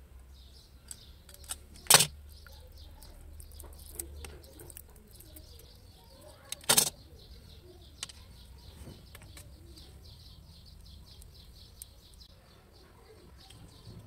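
A utility knife scraping and cutting the jacket of a coaxial cable, with small clicks and two loud sharp knocks, about two seconds in and near the middle. Birds chirp in quick, high runs throughout.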